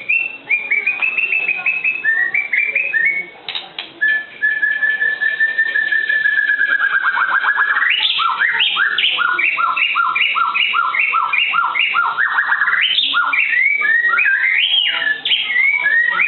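White-rumped shama (murai batu) singing a varied run of loud, clear whistled phrases. A long held note slides down into a fast trill, then a two-note phrase is repeated about twice a second for several seconds, then quick varied notes.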